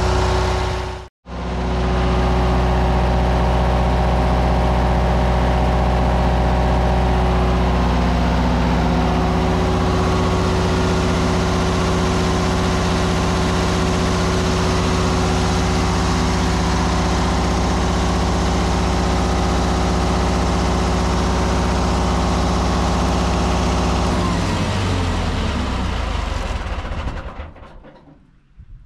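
MEP-003A military generator set's Onan diesel engine running steadily on its warm-up run after an oil change. About 24 seconds in it is shut off, and its pitch falls as it winds down to a stop.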